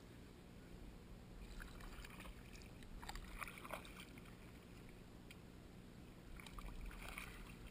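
Faint splashing of kayak paddle strokes, a double-bladed paddle dipping into shallow water, in three short bursts of light splashes.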